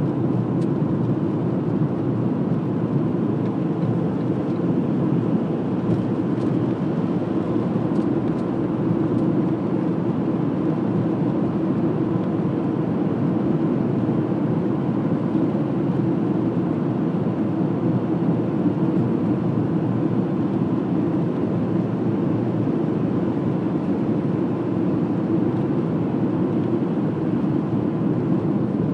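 Steady road and engine noise of a car driving, heard from inside the car, with a faint steady hum above it and no change in level.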